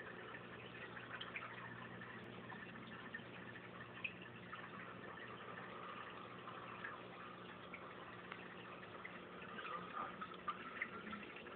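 Aquarium water trickling and bubbling, with scattered small drips and a faint steady hum from the tank's pump.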